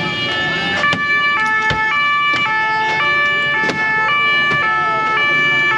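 French two-tone emergency vehicle siren, the 'pin-pon' alternating between a high and a low pitch about every half second. A few sharp knocks sound over it.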